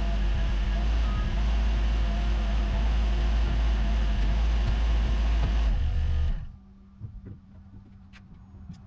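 A heavy engine running steadily with a deep rumble, cutting off suddenly about six seconds in; a few faint clicks and knocks follow.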